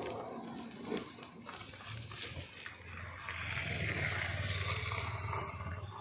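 Motorcycle engine running as it passes close by, a steady low note that grows louder about halfway through and eases off near the end.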